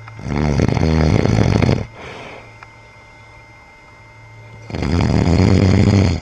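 A man snoring in his sleep: two loud snores, each about a second and a half long and about four and a half seconds apart, the first followed by a shorter, softer breath.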